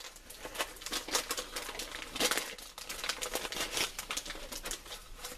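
Trading-card packaging crinkling and rustling as it is handled, with small taps among the rustle, loudest about two seconds in and again near four seconds.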